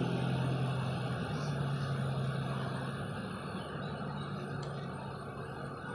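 Motor vehicle engine running with a steady low hum that slowly fades.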